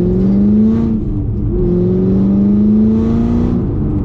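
Camaro SS 1LE's cammed 6.2-litre LT1 V8 accelerating hard, its pitch climbing, dropping at an upshift about a second in, then climbing again through the next gear before the revs fall away near the end.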